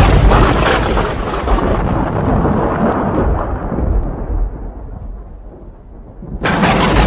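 Thunder in a rainstorm: a loud crackling crash that rumbles away over about five seconds, then a second sudden thunderclap near the end.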